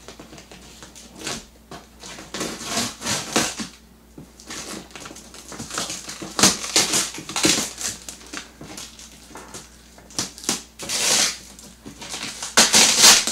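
Industrial scissors cutting through packing tape and corrugated cardboard on a large box: a run of irregular crunching and crackling snips, loudest near the end.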